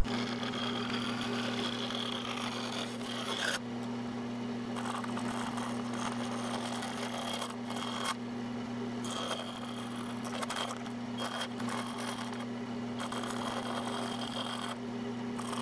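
Scroll saw running and cutting a thin sheet with a paper pattern: a steady motor hum under a rasping cut that stops briefly four or five times as the piece is turned and fed.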